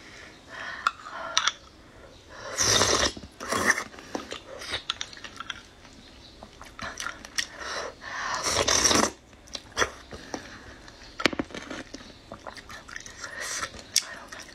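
Close-miked eating of thick lotus-root-starch porridge with nuts off a spoon. There are two loud slurps, about 2.5 s and 8.5 s in, with chewing and small sharp clicks of the metal spoon against the glass mug in between.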